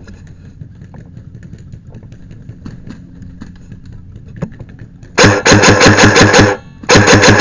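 Airsoft electric gun firing two full-auto bursts, about ten shots a second, the first starting about five seconds in and lasting just over a second, the second shorter and right after. Before them, only a faint steady low hum.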